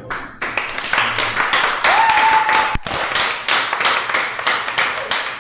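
Audience applauding, dense irregular clapping, with one held high note rising from the crowd about two seconds in and a single sharp knock just before three seconds.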